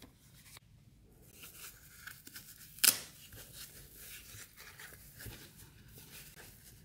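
Tissue paper rustling and crinkling as it is unfolded from around a watch box, with one sharp knock nearly three seconds in.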